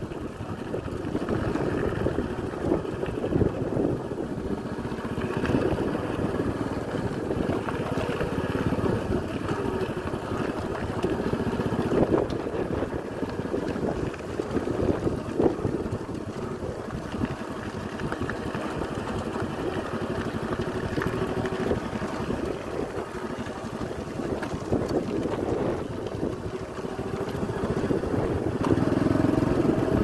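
A vehicle engine running steadily while riding, with wind rushing over the microphone.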